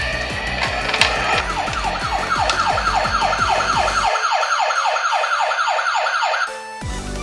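Electronic toy ambulance siren sounding a fast, repeating falling wail, about four sweeps a second, that cuts off near the end. A low rumble underneath stops about four seconds in.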